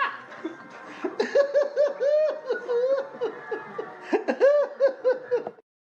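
Hysterical laughter: quick runs of high-pitched laughs, a short break, then a second burst that cuts off suddenly near the end.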